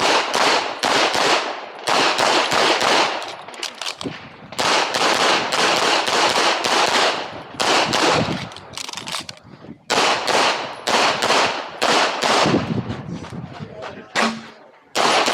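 CZ Tactical Sport pistol fired rapidly through an IPSC course of fire. The shots come in quick strings a few tenths of a second apart, broken by brief gaps, each shot sharp and followed by a short echo.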